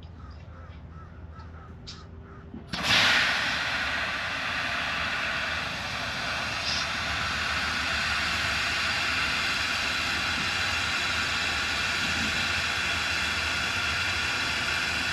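Compressed nitrogen rushing through a copper refrigerant line as it is flushed. A loud steady hiss starts suddenly about three seconds in and keeps going, the gas blowing old oil out of the pipe.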